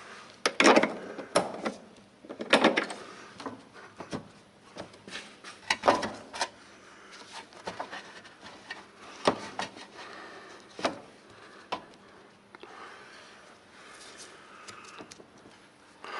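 Irregular knocks, clanks and rubbing from hand tools and parts being handled during work under a car, with a cluster of sharp knocks in the first few seconds and single knocks later.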